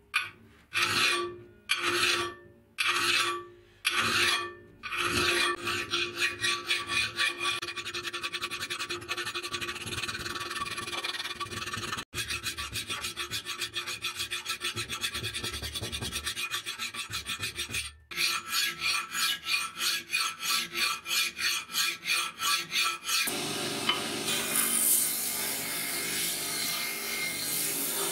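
Hand file rasping across the steel edge of a cleaver blade held in a vise. It starts with slow single strokes about a second apart, then goes to quick strokes several a second. Near the end a steady hiss with a low hum takes over: a belt grinder running.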